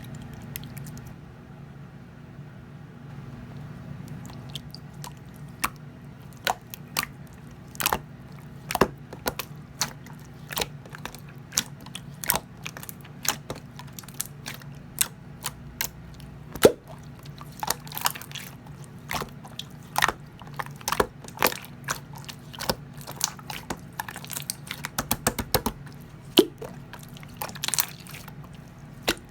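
Blue clear slime being squeezed and worked by hand, making sharp, irregular clicks and pops that come thicker and faster in the second half, over a low steady hum.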